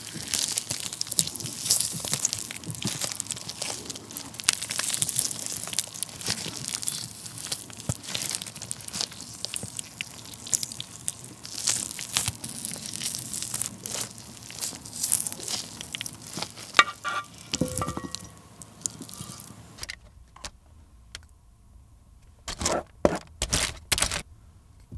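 A glazed roast chicken leg being torn apart by gloved hands close to the microphone: wet, crackling tearing of skin and meat with many sharp snaps. After about twenty seconds it drops off to a few scattered scrapes and taps as chopsticks scrape out the sauce.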